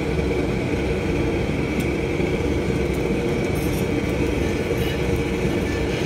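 Steady roar of commercial kitchen equipment running, with a few faint light clinks as the iron griddle plate is wiped with oil.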